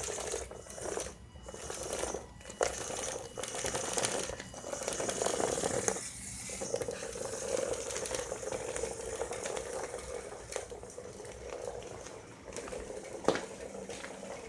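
Makeblock robot tank's electric motors and tracks running with a steady whirring rattle that cuts out briefly several times as the tank stops and restarts, with a sharp click near the end.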